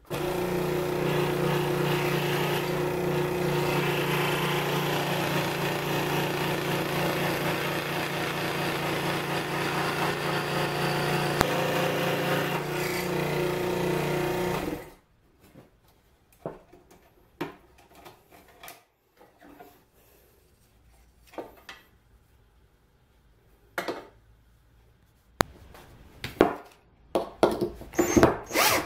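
Electric scroll saw running and cutting through a wooden block: a steady mechanical drone that cuts off suddenly about halfway. After it come scattered knocks of wood being handled, then a cordless drill whirring in short bursts near the end.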